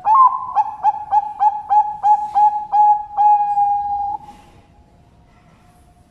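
Zebra dove (perkutut) singing: a quick run of about ten short coos, roughly three a second, ending in one long held coo that stops about four seconds in.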